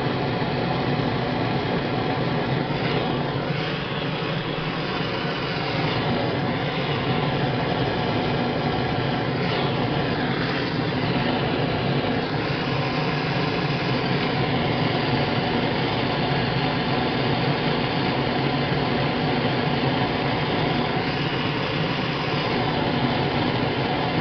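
Propane torch burning with a steady rushing flame noise as it heats an aluminium brake lever.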